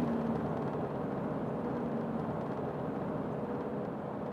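Steady road and engine noise of a car driving along, heard from inside the cabin, with a faint low hum.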